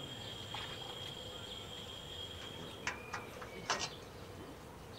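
Insect noise: a steady high-pitched insect drone that cuts off about three seconds in, followed by a few sharp clicks, the loudest a little later.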